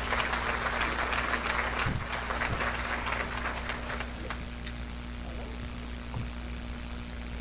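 Audience applauding, the clapping fading out about four seconds in, leaving room noise with a low steady hum.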